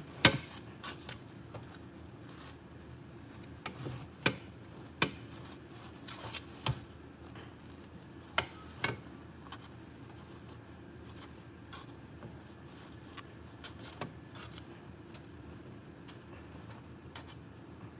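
Faint, scattered knocks and clicks of a knife cutting through a loaf of homemade bread on a board, against a low steady room hum.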